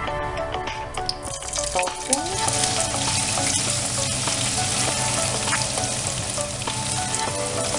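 Cubes of tofu frying in hot oil in a nonstick pan: the sizzle jumps up sharply about two seconds in as they go into the oil, then keeps going steadily while a spatula stirs and scrapes them around the pan.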